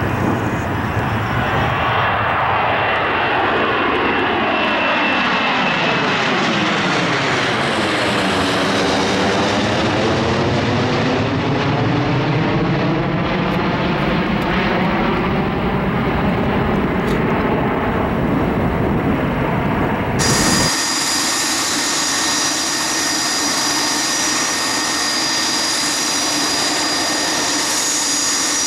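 Twin-engine jet airliner, a Boeing 737, at takeoff thrust climbing out and passing overhead: a loud, steady jet roar with a sweeping, phasing sound that falls and then rises as it goes over. After a sudden change about twenty seconds in, a steady hiss with a high-pitched whine from a regional jet being sprayed by a deicing truck.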